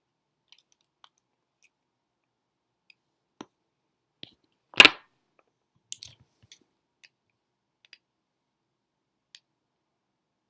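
Small plastic clicks and taps from handling the parts of a headlamp being taken apart, with one much louder knock about five seconds in.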